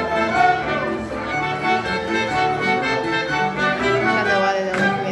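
Live folk band playing contradança dance music: a melody of steady held notes over a beat, coming to a close near the end.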